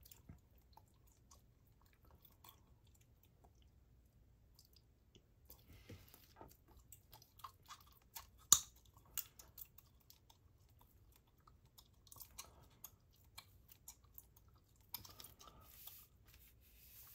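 Chewing gum close to the microphone: an irregular run of small wet clicks and smacks, with one sharp, louder click about halfway through.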